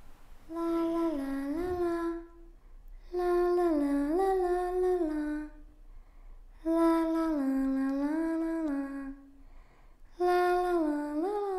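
Humming: a single voice holds a low note in four phrases of about two seconds each, every phrase dipping and rising in pitch with short pauses between them.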